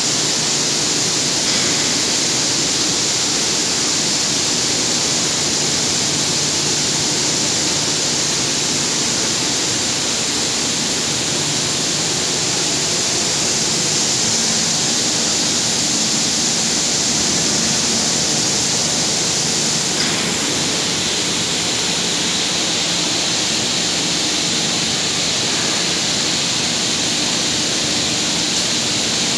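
Industrial heavy-component cleaning machine running: a loud, steady hiss like spraying water, with a low steady hum underneath.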